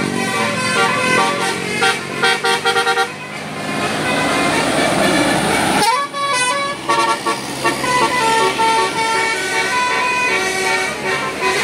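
Bus telolet Basuri horn, an electric multi-tone horn, playing a melody of short stepped notes. Midway a rushing noise swells for a few seconds and cuts off abruptly about six seconds in, after which the horn melody goes on.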